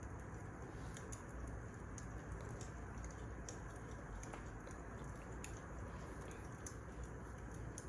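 Wood burning in a fireplace: a steady low hiss with irregular small crackles and pops.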